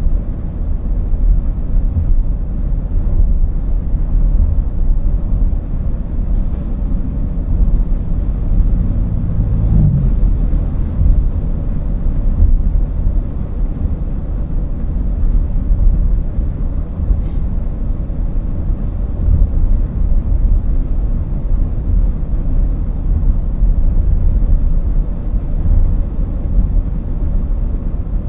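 Steady low rumble of a car driving at road speed, heard from inside the cabin: tyre, road and engine noise. A brief hum rises and fades about nine seconds in.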